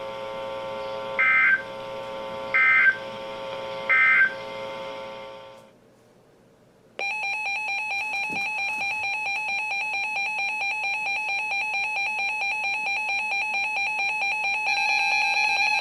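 Emergency Alert System data and alert tones. First come three short bursts of end-of-message data tones, about a second and a half apart, over a steady hum. After a second of silence, a loud steady electronic attention tone starts about seven seconds in.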